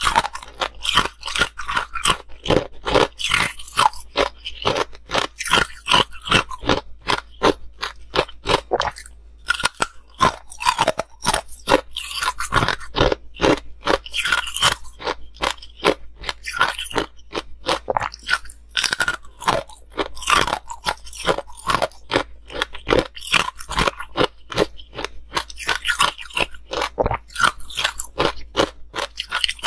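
Close-miked crunching of ice with pomegranate seeds frozen in, bitten and chewed: a rapid, unbroken run of sharp cracks and crunches, pausing briefly about nine seconds in.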